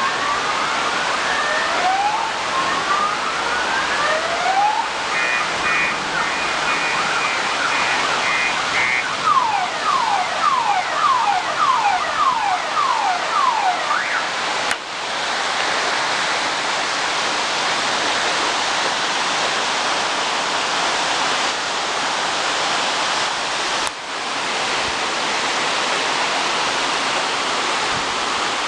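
Very heavy rain pouring down steadily, with a car alarm sounding through it for about the first 15 s: rising sweeps, then a run of quick beeps, then falling sweeps, before it stops. After that only the rain, broken by two short dropouts.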